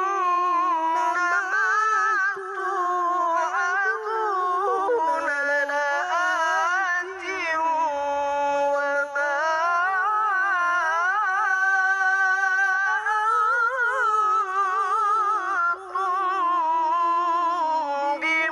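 A young male qari reciting the Quran in the melodic tilawah style, holding long ornamented phrases in a high voice, the pitch bending and trilling up and down with only short breaks for breath.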